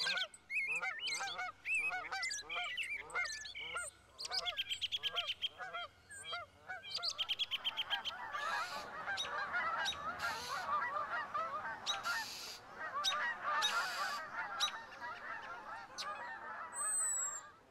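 A flock of birds giving honk-like calls, many short calls repeated and overlapping, with a couple of quick rattling trills. About eight seconds in they thicken into a dense chorus. High falling chirps come near the end.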